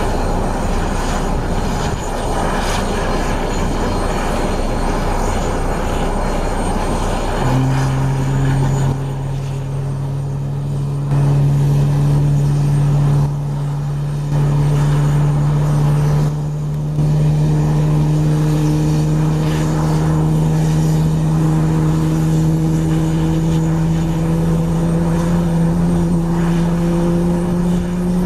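Airbus A320neo's Pratt & Whitney geared turbofan spooling up during engine start on the apron: over a broad rushing noise, a strong hum comes in suddenly about seven seconds in and slowly rises in pitch.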